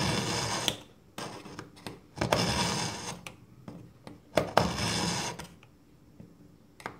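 Kitchen knife drawn through an AnySharp pull-through sharpener's tungsten carbide elements three times, each pull a grinding rasp about a second long that opens with a click, as the blade's edge is ground sharp.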